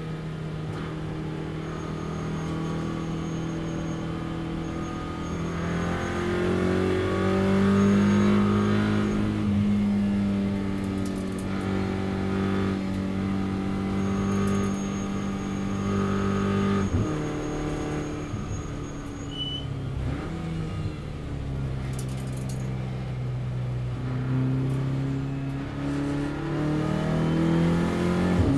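Audi RS3 LMS race car's turbocharged 2.0 TFSI four-cylinder under hard track driving, heard from inside the cabin. The revs climb, hold high, drop sharply with a short crack partway through, then build again near the end.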